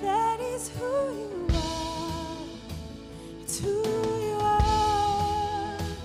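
Live worship music: a woman singing long held notes over keyboard chords and a drum kit.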